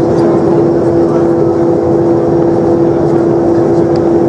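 Cabin noise of a Boeing 737-300 taxiing, its CFM56 jet engines running at idle: a loud, steady two-note hum over an even rushing of engine and cabin air.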